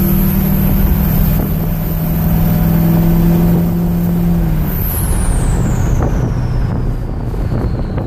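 Ford 6.0 Powerstroke V8 turbo diesel fitted with a KC 10-blade turbo, heard from inside the cab: a high, steady turbo whistle over the engine under load. A little under five seconds in, the engine note drops as the throttle is let off, and the whistle falls steadily in pitch as the turbo spools down.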